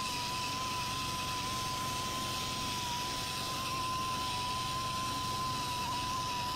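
Pneumatic air sander running at speed, a steady high whine over a hiss of air, as its small sanding disc works the face of a spalted wood blank.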